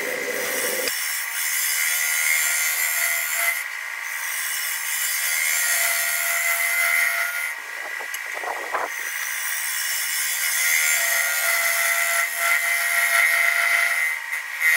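Hand scraper cutting the inside of a 13-inch Fijian mahogany bowl spinning on a wood lathe: a continuous hissing scrape over a steady high tone, broken by a few short pauses.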